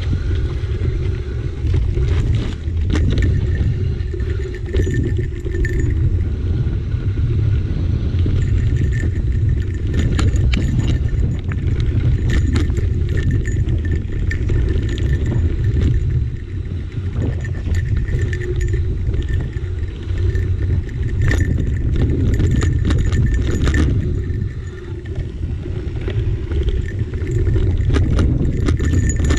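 Mountain bike rolling fast downhill over dirt and rock: wind buffets the handlebar-mounted microphone in a steady low rumble, while the tyres crunch and the bike's parts rattle and clack over bumps.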